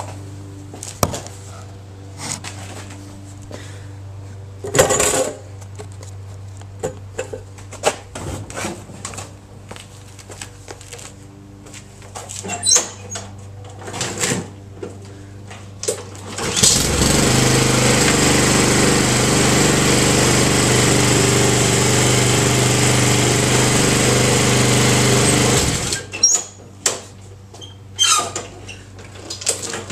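Knocks and clatter of handling, then a Honda HRR216 lawn mower's single-cylinder engine starts about halfway through, with its blade removed. It runs steadily for about nine seconds and cuts off, followed by more knocks.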